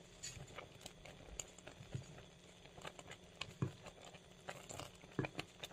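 Silicone spatula stirring a thick, frothy milk mixture in a metal pot, with irregular light taps, clicks and short scrapes against the pot.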